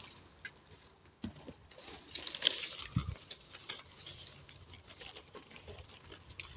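Apple-tree leaves and twigs rustling as they are brushed and handled, with scattered small clicks and a couple of soft knocks against the branches.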